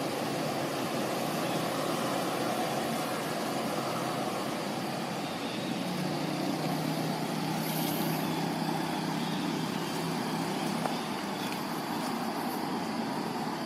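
Steady road-traffic noise, a continuous rush of passing vehicles, with an engine hum standing out for a few seconds in the middle.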